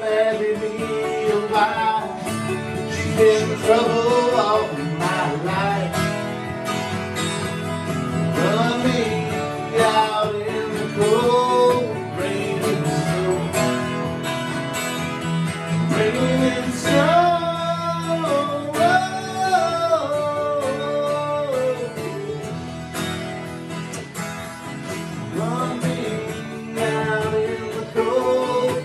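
Acoustic guitar strummed while a man sings a country-folk song.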